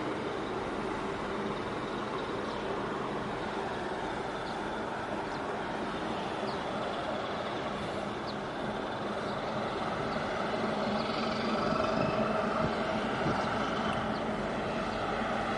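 Steady engine drone of a passing ship and its escort tug, over wind and water noise, swelling a little about ten seconds in.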